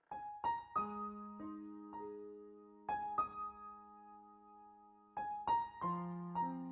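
Background music: a slow keyboard melody of struck notes that ring on and fade, starting just after a silence, with a second group of notes about five seconds in.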